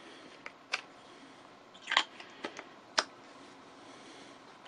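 A handful of light clicks and taps as a snap-on screw driver is lifted from its holder and fitted over the countersink drill bit in a cordless drill's chuck, the sharpest clicks about two and three seconds in.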